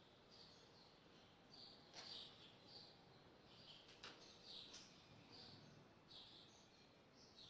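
Near silence with faint, high chirps repeating irregularly, and two soft clicks.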